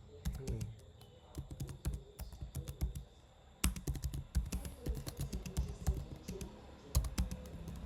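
Computer keyboard typing: quick, irregular keystrokes, with a short pause about three seconds in before the typing resumes.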